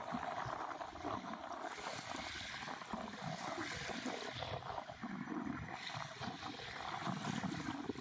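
Small waves lapping and washing up on a sandy beach, a steady, uneven wash of water with fine crackling fizz.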